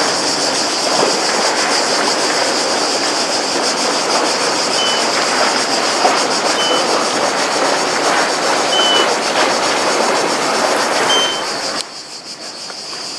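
Wooden motorboat's inboard engine running as it passes along a canal, with the rush of its wash, over a steady high buzz and a few short high chirps. The engine noise drops away abruptly near the end.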